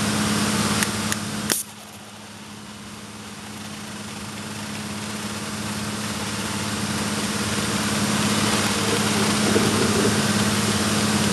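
Steady hum from the HHO setup and the pickup truck that powers its electrolysis cell, under a hiss of gas flow. After a couple of clicks about a second and a half in, the hiss drops away abruptly, then builds back gradually over several seconds.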